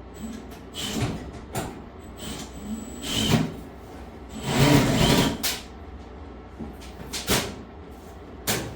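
Sheet-metal panels and parts of a GE commercial dryer being handled during disassembly: irregular knocks and clatter, with a longer, louder clatter about halfway through.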